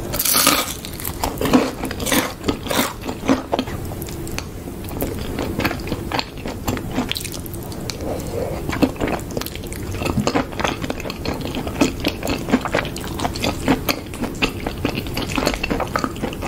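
Close-miked eating: chewing and biting of cheese-covered fries and cheesy corn, with many irregular sharp crunches and wet mouth sounds. Near the end, chopsticks click against the ceramic baking dish.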